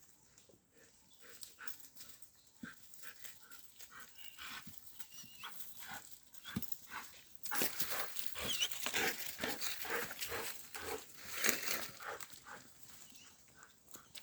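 A dog, heard as a quick run of short clicking noises that grows busier and louder about halfway in, with a few faint squeaky sounds.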